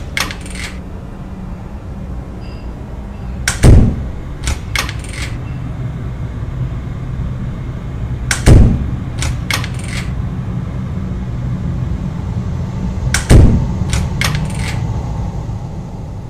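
Coughing over a steady low rumble: three bouts about five seconds apart, each one loud cough followed by three fainter ones.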